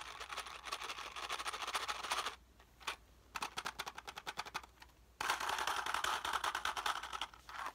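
ASMR trigger sounds: rapid, dense clicking close to the microphone, many clicks a second, in three runs with short breaks about two and a half and five seconds in.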